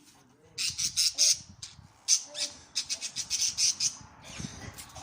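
Lovebirds calling in quick runs of short, shrill chirps and squawks, loudest in the first four seconds and fainter near the end.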